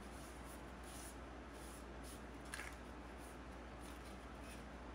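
Cloth pad rubbing shellac onto a wooden camera frame in a series of soft, short strokes, with a brief tap about two and a half seconds in. A steady low hum runs beneath.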